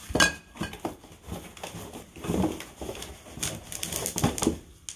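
Plastic-wrapped metal bed legs being handled and unpacked from a cardboard box: crinkling plastic wrap with irregular knocks and clinks as the legs touch each other and the box.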